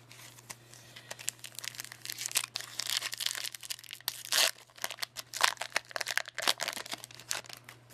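Foil Pokémon booster pack wrapper crinkling and being torn open by hand, in irregular crackles and rips.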